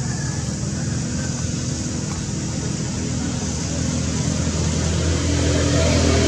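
A steady low motor hum, like an engine running, slowly getting louder.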